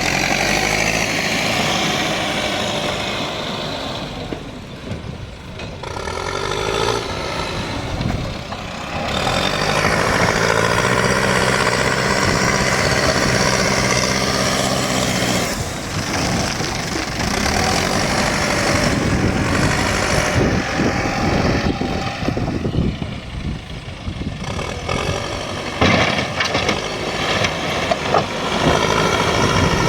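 Diesel engine of a JCB earthmoving machine working on site, its engine note rising under load and easing back several times, with a sharp knock near the end.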